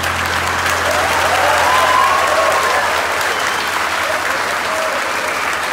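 A large church congregation applauding, dense and sustained clapping with a few voices calling out over it. A low held note from the music fades out in the first second or two.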